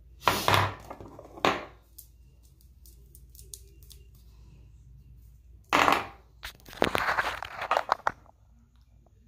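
Rustling and scraping close to the microphone as the phone recording it is handled and repositioned. The noises come in short bursts, two near the start and a longer, busier stretch from about six to eight seconds in.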